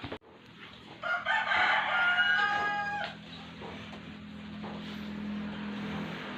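A rooster crowing once, a single long call of about two seconds, with a steady low hum underneath that runs on after it.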